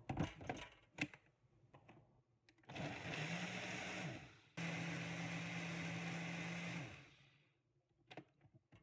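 Ninja Auto-iQ blender motor blending a shake in a personal-size cup: two runs, the first about a second and a half and the second about two seconds, with a brief stop between them. Before it starts there are plastic clicks as the cup is set onto the base, and more clicks near the end as the cup is taken hold of.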